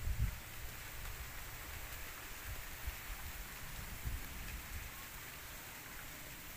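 Steady outdoor hiss with a few low thumps, the strongest right at the start.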